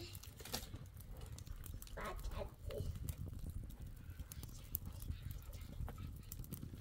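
Small fire of dry leaves and twigs crackling, with irregular sharp pops over a low rumble. A voice is heard briefly about two seconds in.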